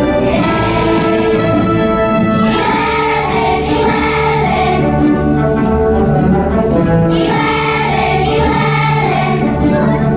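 A children's choir of second graders singing a song over instrumental accompaniment.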